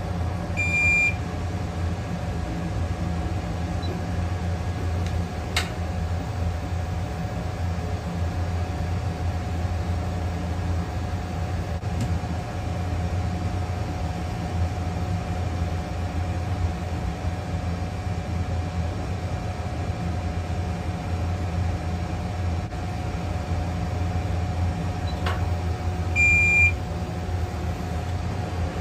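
BGA rework station running with a steady hum, giving a short high beep about a second in and another near the end, which mark the start and end of its heating cycle as the heater head lowers onto the board and lifts off again.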